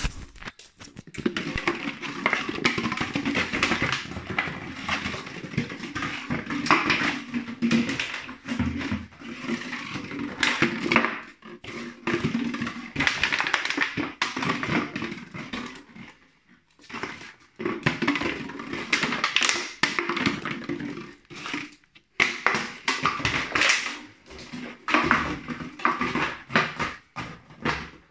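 An empty plastic drinks bottle crackling, crinkling and clattering as a Jackabee puppy bites it, noses it and shoves it across a laminate floor. The sound comes in bursts of quick clicks and knocks, with short pauses.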